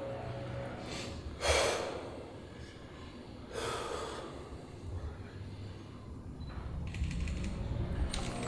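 A man breathing out hard in short, sharp bursts while straining to hold a flexed bodybuilding pose. The loudest comes about one and a half seconds in, another about two seconds later, and a short one near the end.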